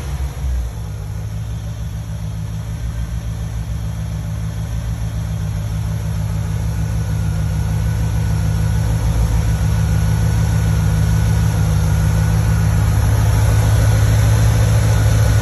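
1996 Chevrolet Corvette LT4 5.7-litre V8 idling steadily, heard close up in the engine bay, its revs dropping back to idle from a throttle blip in the first second.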